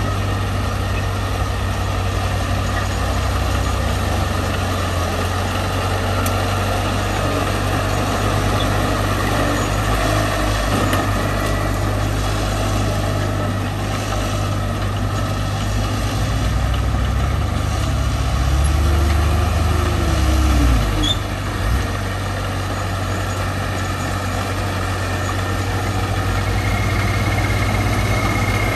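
Heavy earthmoving machine's diesel engine running steadily. About two-thirds of the way through it grows louder for a few seconds, then drops back suddenly.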